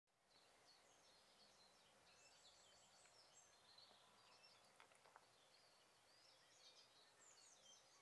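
Faint background birdsong: many short high chirps and twitters from small birds, with a couple of faint clicks near the middle.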